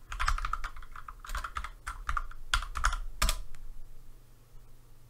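Computer keyboard typing: a quick run of keystroke clicks entering an IP address, stopping about three and a half seconds in.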